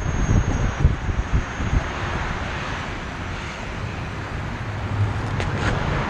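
Wind buffeting the microphone of a camera mounted low on a moving Gotway electric unicycle, with the rumble of the ride over paving stones. Gusty in the first second or two, then a steadier rush.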